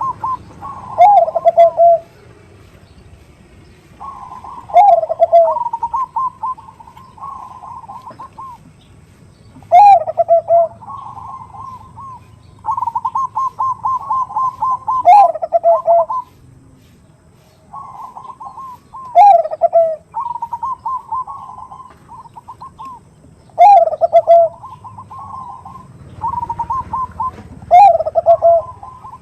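Bangkok perkutut (zebra dove) cooing: rolling phrases of rapid pulsed coos, each with a loud note that falls in pitch, repeated about every four to five seconds. This is the call the uploader presents as a female calling a male.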